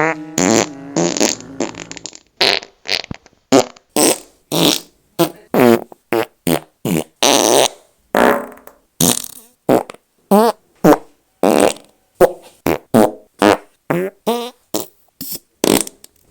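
A rapid string of short fart sound effects, one after another with brief silences between, about two a second.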